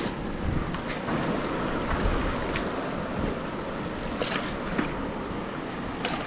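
Steady rush of fast-flowing river water, with short splashes breaking through it now and then.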